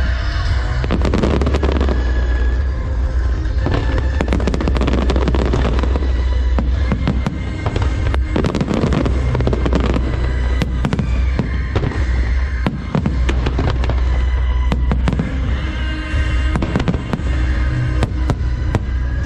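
Aerial fireworks bursting in quick succession, many sharp bangs and crackles one after another, over music played loud with a deep steady bass.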